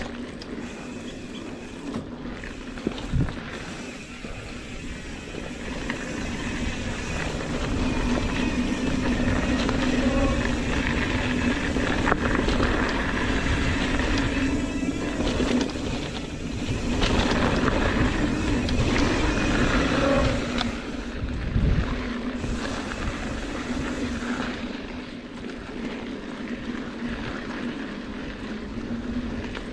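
Mountain bike riding over dirt singletrack: tyre and ride noise with wind on the camera microphone and a steady hum. It gets louder through the middle, with a couple of knocks over bumps, one about three seconds in and one past twenty seconds.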